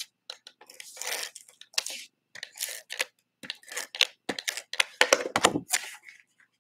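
Tape runner drawn across the back of a cardstock panel in a quick series of short scraping strokes, with paper rustling as the panel is handled and laid onto the card.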